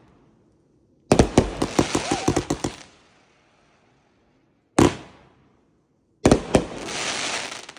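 Consumer aerial fireworks going off: a rapid string of sharp cracks for about a second and a half, a single bang near the middle, then another bang near the end followed by a crackling hiss.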